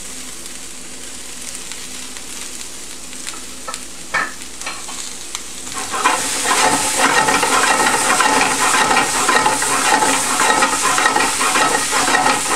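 Halved Brussels sprouts and sliced onion frying in olive oil in a sauté pan on near-high heat, a steady sizzle. About halfway through it grows louder and busier as the pan is shaken and the sprouts shift and rattle in the hot oil.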